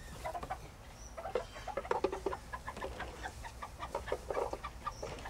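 Backyard hens clucking: a busy, overlapping run of short clucks, several a second.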